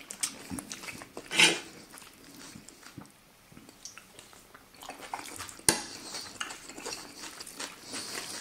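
A metal spoon and a wooden spatula scraping and clinking against an enamel pot as the salad is stirred and a spoonful scooped out. There is a longer scrape about one and a half seconds in and a sharp clink a little before six seconds.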